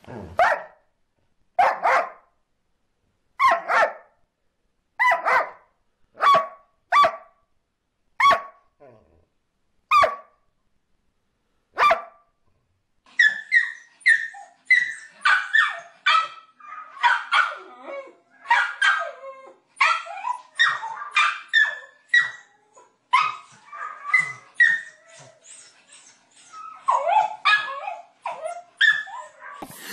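A dog barking in single short barks, one every second or so, for about twelve seconds. Then a small dog barks and yips rapidly and almost without pause, in a higher pitch.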